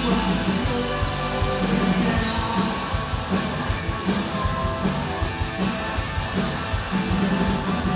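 Live rock band playing loudly on stage, with electric guitar over a steady drum beat.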